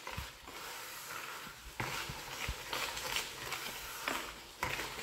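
Wire whisk stirring a thick, grainy mixture of egg, butter, sugar, grated cheese and coconut in a plastic bowl: a soft wet scraping with irregular knocks of the whisk against the bowl.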